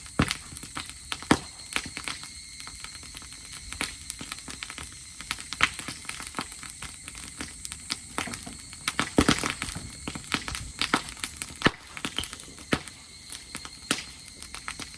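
Dry-grass bonfire crackling, with irregular sharp pops and snaps over a light hiss.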